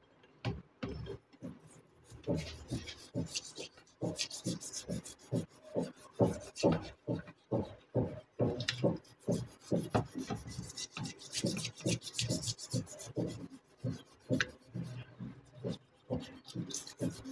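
Rusty iron blacksmith tongs being scrubbed in a tub of liquid: repeated rasping scrub strokes, a few scattered ones at first, then a steady run of about two or three a second, as rust comes off into the water.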